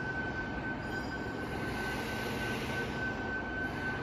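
Portable line boring machine running, its drive motor turning the boring bar: a steady mechanical whir with a constant high whine.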